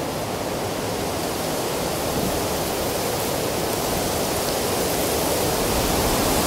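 Wind rushing through tall dry grass: a steady noise with an uneven low rumble, slowly growing louder.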